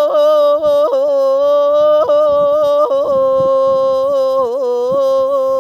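A woman's unaccompanied voice holding one long sung note, drawn out on "ya" in a traditional Gulf Arabic folk song. The pitch stays nearly level with small ornamental turns every second or so, and steps slightly lower about halfway through.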